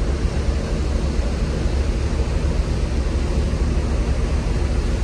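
Steady low rumble of wind on the microphone on an open ship's deck, with a faint machinery hum beneath.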